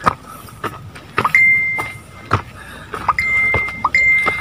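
Footsteps on a dry dirt trail, one step roughly every half to two-thirds of a second. From about a second in, four short, steady high beeps sound, the last three close together.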